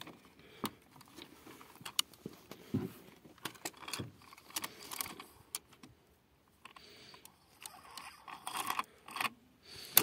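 Quiet, scattered plastic clicks, taps and rustling as a fibre-optic cable and its loose tubes are pulled out of a plastic splice enclosure and the splice trays are handled.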